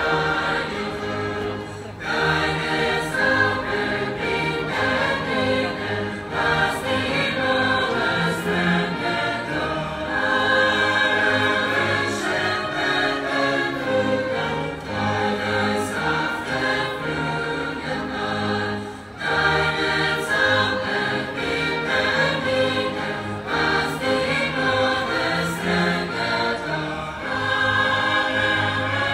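A choir singing with an orchestra, strings among it, in a live performance. The music dips briefly between phrases about two seconds in and again about nineteen seconds in.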